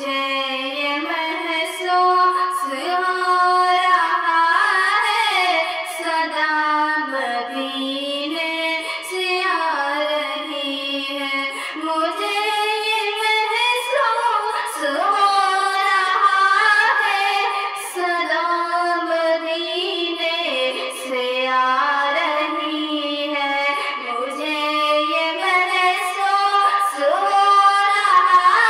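A high female voice singing a naat melody in long, gliding held lines with no audible instrumental backing.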